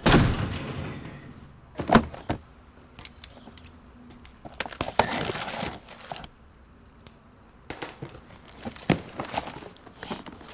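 A heavy apartment door swinging shut with a thud right at the start, ringing away over about a second. After that come scattered clicks and knocks and several bouts of crinkling and rustling, as a cardboard box is handled.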